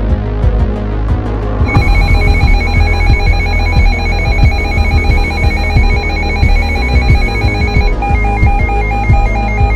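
Electronic alert tone over background music with a heavy bass beat. About two seconds in, a rapidly pulsing high tone comes in, ringing like a phone, and near the end it switches to a warble that alternates between two pitches.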